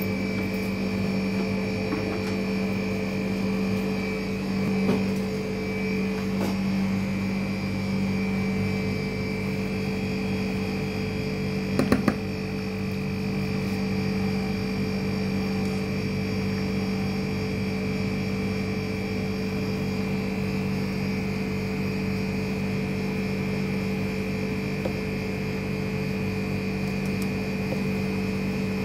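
Steady machine hum made of several constant tones, with a brief cluster of sharp knocks about twelve seconds in.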